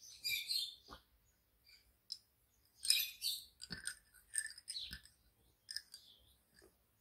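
Bobbin-lace bobbins clicking against each other in several short bursts as pairs are twisted and crossed on the lace pillow.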